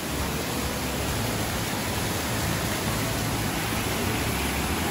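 Steady rush of falling water from a small waterfall on a hill stream: an even hiss with no breaks.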